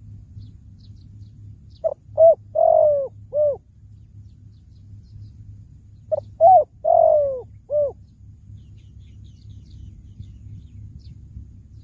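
Spotted dove cooing: two phrases of four notes, a few seconds apart, the third note of each longer and falling in pitch. It is a decoy dove calling to draw in wild doves.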